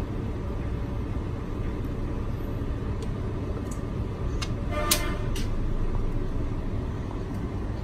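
Steady low rumble of background noise, with a few light clicks and one sharper, briefly ringing click about five seconds in.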